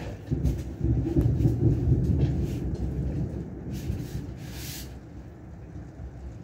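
A thunderclap during heavy rain: a sharp crack, then a loud low rumble that rolls on for a few seconds and slowly fades.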